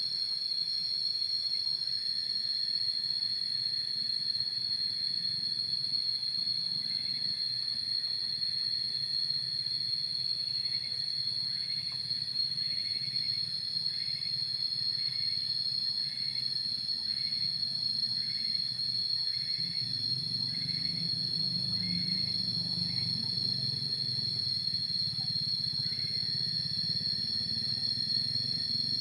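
Steady high-pitched insect drone, with short chirps repeating about every 0.7 s through the middle. A low rumble swells in from about two-thirds of the way through.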